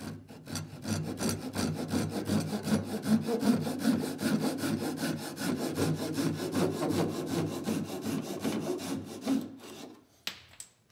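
Small fine-toothed handsaw cutting through a thin cedar strip at an angle, in quick, even back-and-forth strokes that stop about a second before the end. A couple of light knocks follow.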